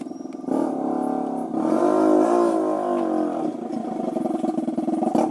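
A vehicle engine revs up about half a second in, is loudest around two seconds in, then drops back to a lower steady run.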